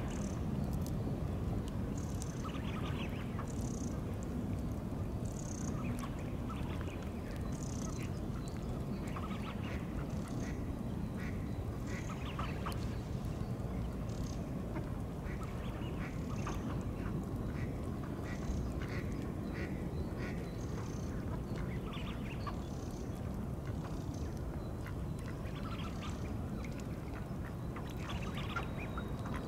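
Male tufted ducks calling in courtship: a steady run of short, high whistling calls, over a constant low background noise.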